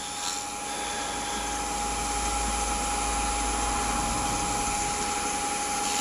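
Wood lathe running steadily while a paper towel rubs the spinning wooden roof piece, applying a second coat of wax polish; a steady whine over an even hiss.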